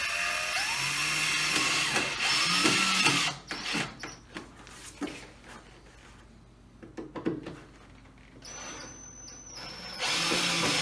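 Cordless drill driving screws: a long run of the motor whining for the first three seconds or so, then a few clicks and knocks, a short higher-pitched run about eight and a half seconds in, and another run starting near the end.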